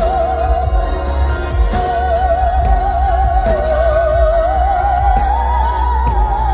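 Music with a single voice singing long, held notes with wide vibrato, operatic in style, over a heavy, steady bass.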